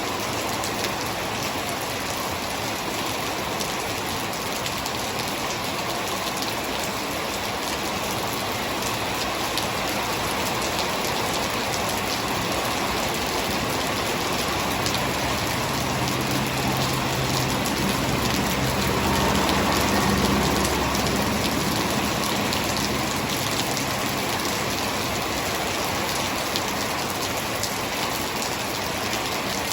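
Heavy rain falling steadily, with a low hum that swells and fades away through the middle.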